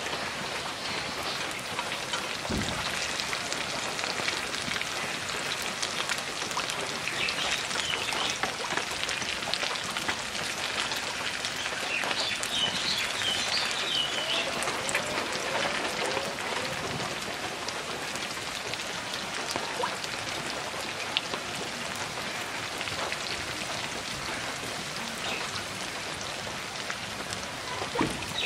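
Ash gourd leaf and lentil pakoras deep-frying in hot oil in a wok, with a dense, steady sizzle and crackle of bubbling oil.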